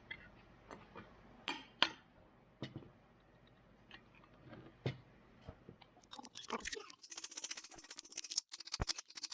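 Scattered light metal clinks and taps of tools and vise parts being handled, then a fast run of ticking clicks from about two-thirds of the way in.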